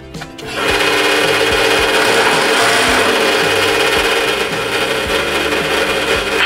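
Pedestal drill press starting up about half a second in and its bit cutting into a small metal bracket clamped in a vise: a loud, steady, harsh grinding whine.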